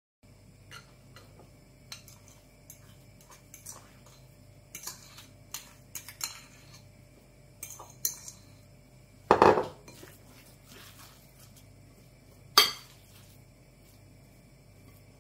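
A metal fork scraping and tapping on a ceramic plate during mashing, with scattered light clinks, then knocking against a glass mixing bowl. The loudest sounds are a cluster of knocks about nine seconds in and a sharp clink a few seconds later.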